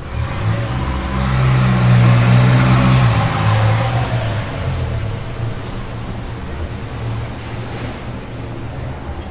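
Motor vehicle passing close by on a city street, its engine hum and road noise swelling to a peak about two to three seconds in and then fading into the steady hum of traffic.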